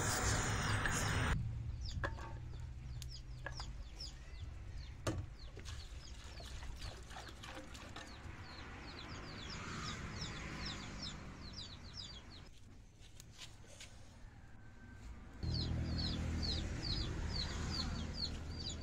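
Chickens clucking and cheeping, with rapid high cheeps repeating several times a second; a few sharp knocks stand out.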